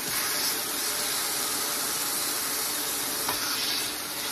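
Marinated chicken pieces sizzling in a hot electric nonstick skillet on medium heat, a steady hiss as more pieces are laid flat on the pan.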